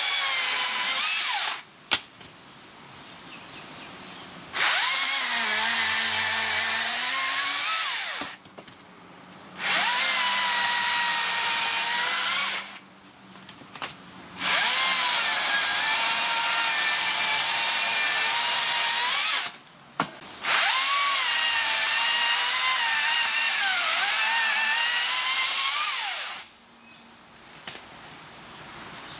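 Makita UC004G 40-volt brushless top-handle battery chainsaw cutting through a small tree trunk in five runs of a few seconds each, with short quiet pauses between them. The motor's whine dips and recovers as the chain bites into the wood.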